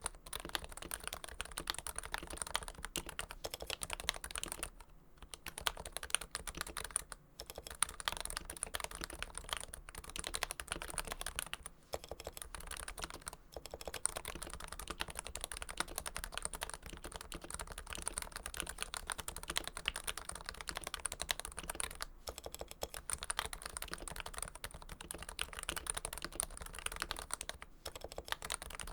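Continuous typing on a Realforce keyboard with Topre electrostatic capacitive switches lubed with Krytox 105, built on a Realforce Hipro plate in a first-generation Realforce TKL case. It is a dense run of keystroke clicks, broken by a few brief pauses.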